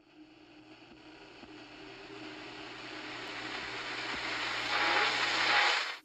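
A rushing noise with a low hum beneath it swells steadily louder for about six seconds, then cuts off abruptly.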